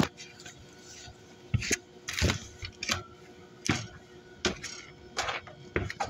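Irregular knocks and clicks of a phone camera being handled and set in place, over a faint steady hum from rooftop heat pump condensing units running.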